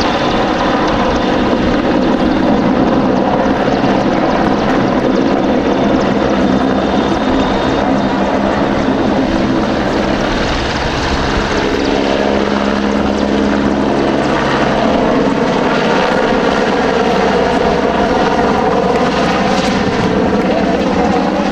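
SH-101A (AgustaWestland AW101) helicopter flying past, the steady drone of its three turboshaft engines and five-bladed main rotor. Its pitch shifts around the middle and rises again near the end as it banks.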